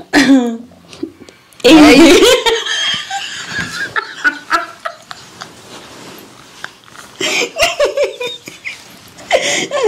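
Two women laughing hard together, with a loud outburst about two seconds in, a quieter stretch in the middle and more laughing near the end.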